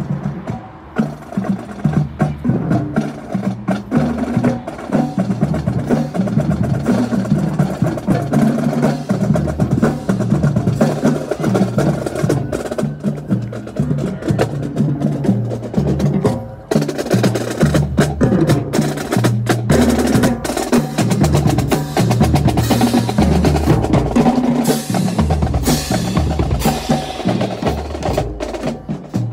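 Marching band drumline playing a cadence: rapid snare drum strokes and rolls over pounding bass drums, keeping up throughout.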